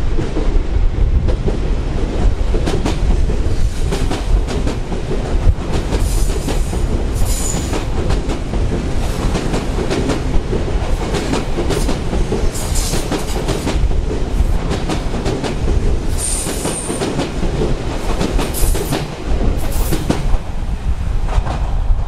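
Odakyu 3000 series electric commuter train passing close by, a steady low rumble with wheels clicking over the rail joints. Brief high wheel squeals come several times as it goes by.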